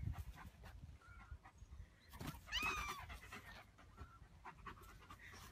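A German shepherd panting softly, with one short high-pitched mew from a kitten about two and a half seconds in.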